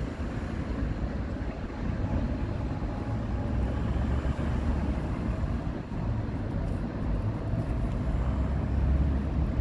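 Steady rumble of city street traffic, with no single vehicle standing out.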